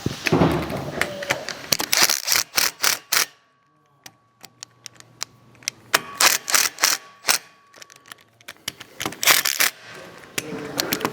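Impact driver with a hex bit driving the bolts home in several short bursts of rapid clattering hammering, with pauses between them.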